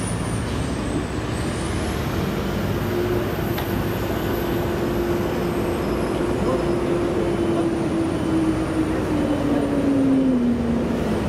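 Steady engine drone with a faint high whine; a lower tone slides down in pitch over the last couple of seconds.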